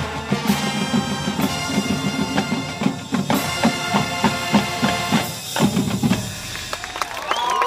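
High school marching band playing a drum-heavy passage, with bass and snare drums beating rapid patterns under held brass chords. The drums thin out about six seconds in.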